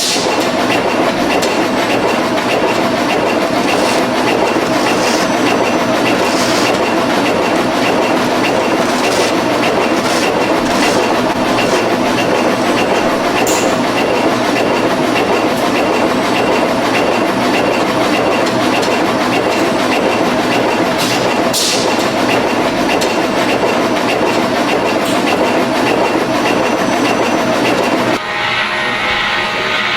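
Production-line machinery in a filter factory running with a steady, dense clatter and occasional sharp clicks. About two seconds before the end it cuts to music.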